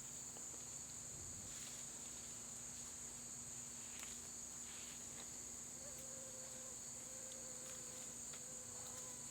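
Steady, high-pitched chorus of crickets, with a few faint rustles and clicks.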